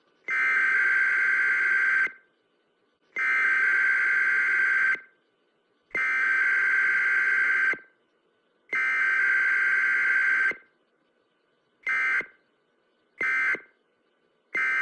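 Electronic alarm buzzer sounding four long blasts of about two seconds each, evenly spaced, then three short beeps.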